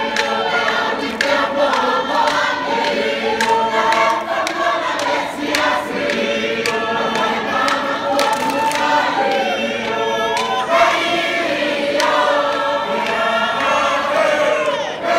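Large group of men and women singing a Tongan lakalaka together in several parts, with sharp hand claps through the song.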